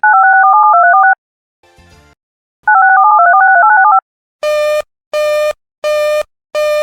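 Two quick runs of touch-tone (DTMF) signalling tones, each about a second long, with a brief faint crackle between them. After that a harsh buzzing tone pulses on and off about one and a half times a second. These are control and attention tones on an emergency alert broadcast feed.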